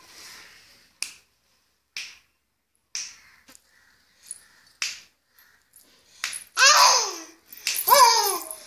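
A few sharp clicks about a second apart, then an infant babbling loudly in a high, wavering voice, in two stretches over the last couple of seconds.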